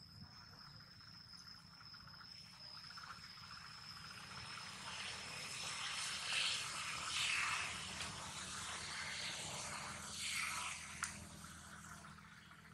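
Insects buzzing: a steady high whine that fades out by the middle, and a hissing chorus that swells in the middle and dies down near the end, with one sharp click shortly before the end.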